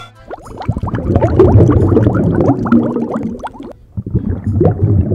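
Loud splashing and gurgling of water as a person plunges into it, in two spells with a short break about three and a half seconds in.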